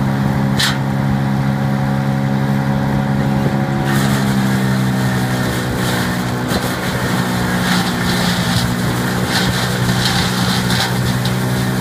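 Tomcat 250AFP PTO-driven drum wood chipper running at speed, its steady drone coming from the tractor drive. About four seconds in, an irregular crackling, clattering noise starts on top as material is fed in and chipped.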